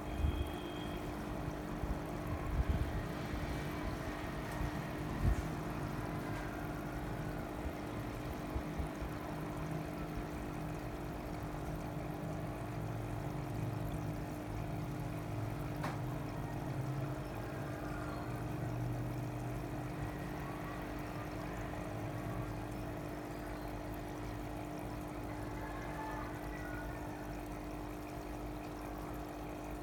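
Steady electric hum of fish-tank water pumps, with water pouring and trickling. A few low knocks come in the first few seconds.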